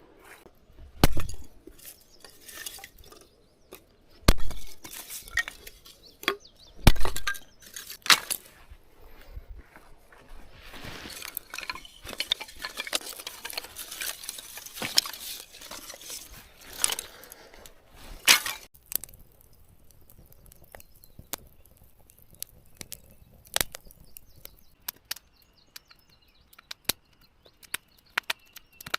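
Fishing gear being handled: scattered clicks, clinks and knocks, with a few louder thumps about 1, 4, 7 and 18 seconds in and a stretch of rustling in between; quieter after that, with only occasional clicks.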